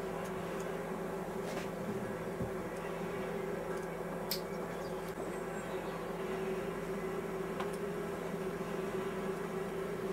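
A steady droning hum with a fixed pitch, with a few faint clicks and one sharper tick about four seconds in.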